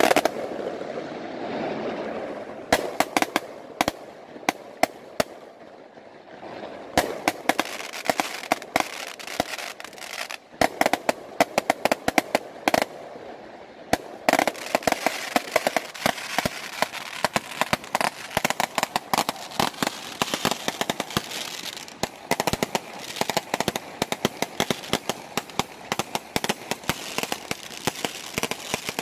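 Aerial fireworks display: shells bursting in rapid, near-continuous volleys of sharp bangs and crackling, with a few brief lulls.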